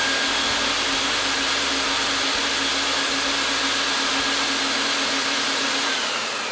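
Vacuum suction floor of a rug-washing machine running, pulling rinse water down through a wet wool rug: a steady rushing hiss with a faint low hum, easing off slightly near the end.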